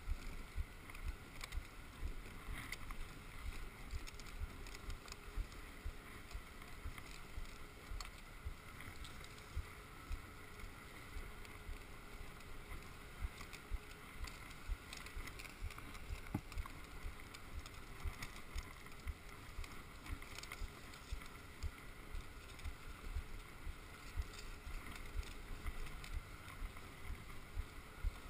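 Dog sled running along a snowy trail behind its team: a steady hiss of the runners sliding on snow, with frequent irregular low knocks as the sled jolts over the trail.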